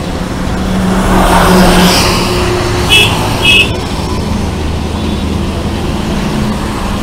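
Yamaha FZ's single-cylinder engine running steadily under wind and road noise while riding on a wet road, with two short horn beeps about three seconds in.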